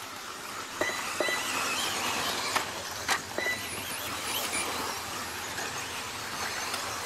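Electric 1/10-scale off-road racing buggies running: high-pitched motor whine that rises and falls with throttle, with a few sharp clicks.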